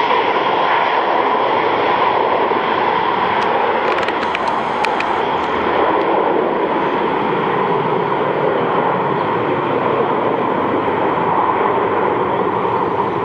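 Airbus A330-200 airliner's jet engines at takeoff thrust, a loud steady rush as the aircraft lifts off and climbs away.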